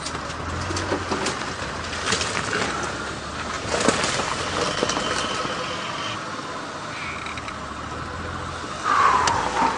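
Game-drive vehicle engine running low and steady as the vehicle creeps along, with scattered knocks; a loud falling squeal near the end.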